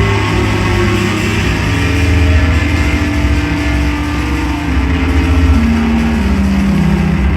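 Loud psychedelic drone-noise music: a dense wall of distorted sound over a heavy sustained low drone, with held tones shifting in pitch above it and no clear beat.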